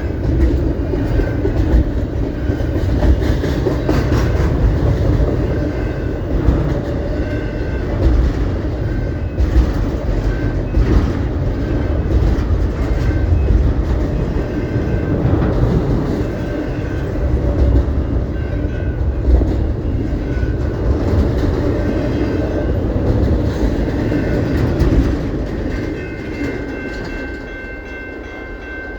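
CP Rail train rolling past close by: a heavy low rumble with the clickety-clack of wheels knocking over rail joints. Near the end the rumble fades and a steady high ringing tone comes in.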